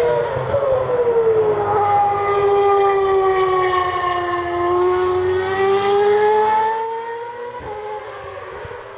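Toro Rosso Formula 1 car's V6 turbo-hybrid engine howling as the car passes close by. The note sinks in pitch through the middle and climbs again as it accelerates away, then fades over the last couple of seconds.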